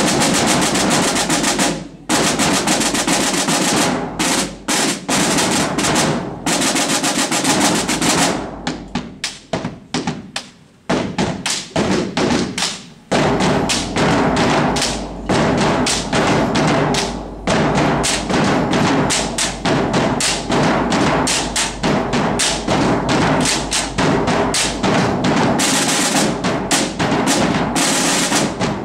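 Marching drum line of snare drums and bass drums playing a cadence. Around eight seconds in the playing thins to separate, spaced hits, and about five seconds later the full line comes back in with rapid strokes.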